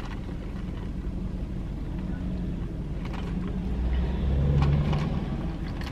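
Low, steady hum of a car heard from inside its cabin, with a deeper rumble swelling louder about four seconds in and easing off soon after.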